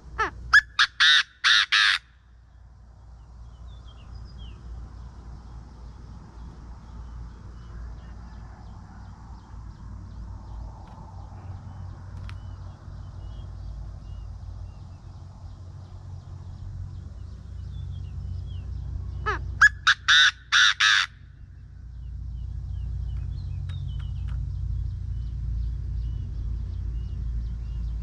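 Caged decoy Chinese francolin calling twice, about twenty seconds apart. Each call is a quick series of about five loud, harsh notes lasting under two seconds.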